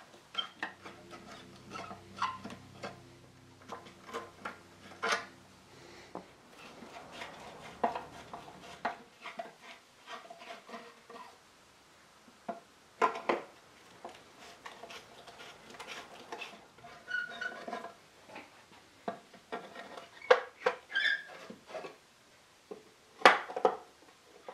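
Screwdriver backing screws out of a wooden table's aprons and metal corner brackets: scattered clicks, small squeaks and metal clinks, with a few sharper knocks. A faint low hum runs under the first several seconds.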